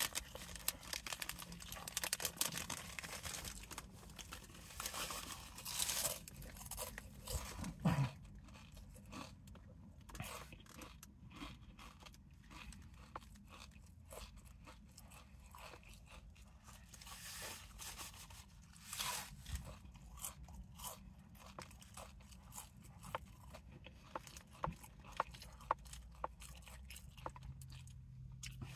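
Crunching and chewing of Cool Ranch Doritos tortilla chips: a run of sharp, irregular crunches, thickest in the first few seconds and again in the last ten.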